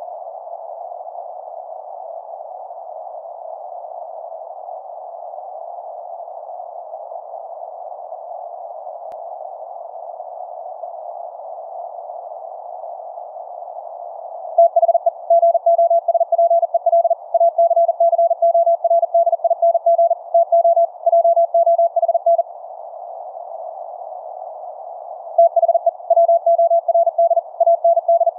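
C.Crane Skywave SSB shortwave radio in LSB mode giving a steady hiss of receiver noise, then rapid high-speed Morse code beeps that start about halfway through, stop briefly, and resume near the end. The Morse is the 4th harmonic of an Elecraft K3S transmitting on 630 meters, received as a check on the transmitted CW.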